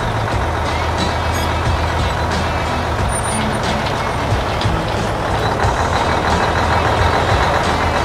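Steady, loud engine and machinery sound of a combine harvester at work, with background music underneath.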